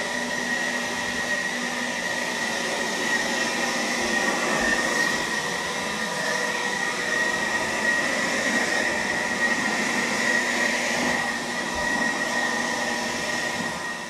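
Battery-powered handheld blower running steadily at full speed, a rushing of air with a high whine held throughout.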